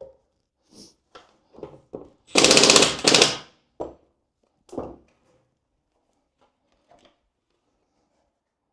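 Power drill driving bolts into an HDPE plastic skid plate in short bursts, the longest lasting about a second near three seconds in, with a fast rattling pulse. The bolts are being forced through tight, badly aligned holes.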